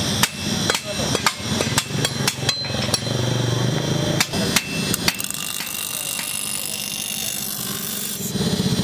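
Bench grinding wheel running steadily as a knife blade is ground on it, under a run of sharp knocks, about two to three a second, that stop about five seconds in. Near the end a louder, pulsing low hum comes in.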